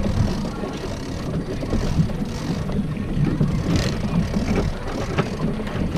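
Steady low rumble and water noise aboard a small fishing boat at sea, with wind buffeting the microphone.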